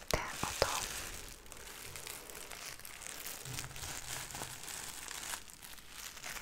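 Sequins on a black fabric pouch rubbed and scratched by fingers close to the microphone: a dense, crinkly rustle, with a few sharp clicks in the first second.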